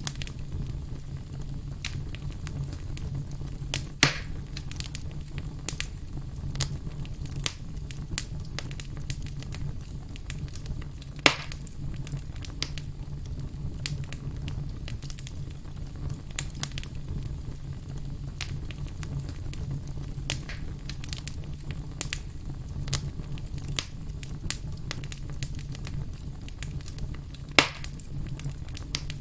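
Firewood logs burning, with frequent small crackles and three sharp, louder pops, over a steady low rumble.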